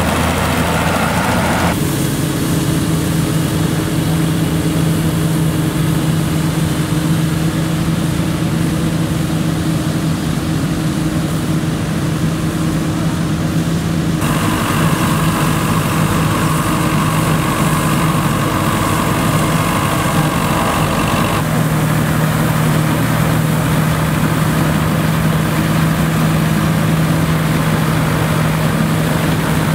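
Vintage Nuffield tractors pulling trailed Dronningborg combine harvesters, engines running steadily under load with the combines' machinery working. The sound changes abruptly three times as the scene shifts between machines.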